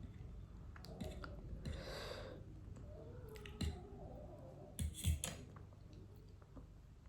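A few quiet clicks and taps, three sharp ones close together near the middle, with a short soft hiss about two seconds in.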